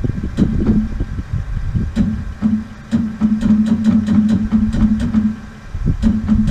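Sawmill engine being cranked by its electric starter, a steady whirring hum with irregular clicks and knocks, in two tries with a short break about six seconds in. The engine had seized, which the owner takes for a hydro lock.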